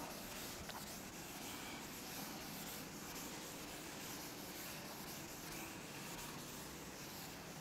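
Chalkboard duster wiping chalk off a chalkboard: a faint, steady rubbing.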